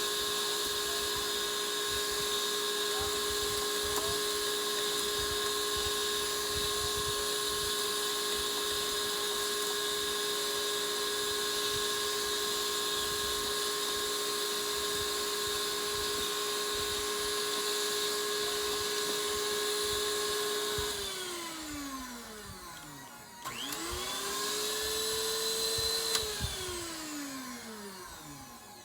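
Electric mixer motor running at a steady speed, then switched off and winding down about 21 seconds in. It is switched on again briefly, speeds up, runs for a couple of seconds and winds down again near the end.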